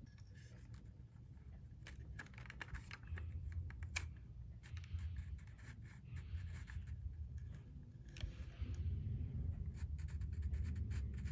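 Handling sounds from loading 35 mm film into a plastic Kodak M35 film camera: scattered small plastic clicks and taps, and the scratch of the film leader sliding across the camera's back. A low handling rumble grows louder in the last few seconds.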